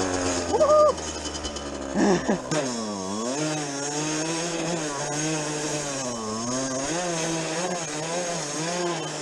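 50cc two-stroke dirt bike engine riding off-road, its revs falling and climbing again every second or two as the throttle is worked. A brief loud high-pitched sound comes under a second in, and a loud jumble of sound at about two seconds.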